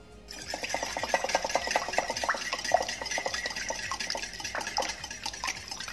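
Metal balloon whisk beating a raw egg and oil in a bowl: rapid, even clicking and scraping of the wires against the bowl, starting a moment in.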